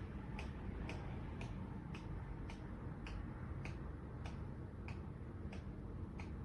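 A Hurricane 20-inch box fan running with a steady low rush of air. A light, sharp tick sounds about twice a second throughout.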